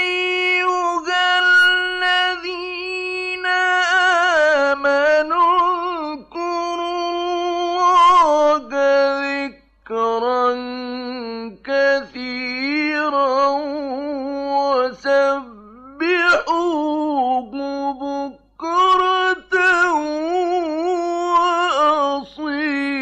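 A male Quran reciter chanting in the slow, melodic mujawwad style. He draws out long, ornamented notes with a wavering pitch, broken by several short pauses.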